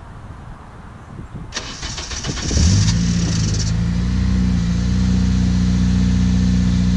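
Honda Civic Si's K20 four-cylinder engine cranked by the starter for about a second, catching and settling into a steady, loud idle, running with the muffler off.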